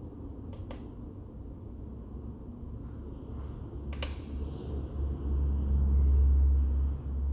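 Firewood burning in a TMF Vizier clean-burn fireplace: a couple of sharp crackling pops, the louder one about four seconds in, over a low rumble that swells from about five seconds in.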